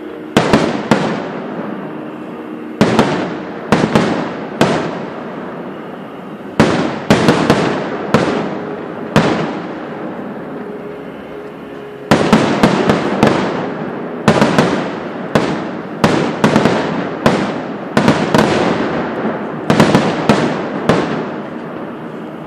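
Fireworks display: aerial shells bursting as loud bangs in quick volleys, each bang trailing off in a rolling echo. Short lulls fall between the volleys, and a dense run of bursts fills the second half.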